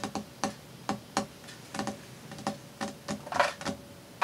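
A run of light, irregular clicks and taps, about a dozen, with a denser cluster about three seconds in, from craft supplies being handled and sorted by hand.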